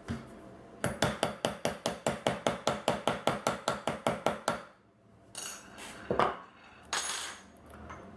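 A fast run of hammer taps on a metal hand eyelet setter, about six a second for nearly four seconds, setting a 3/16-inch eyelet into leather against its steel seat. A few short handling noises from the tools follow.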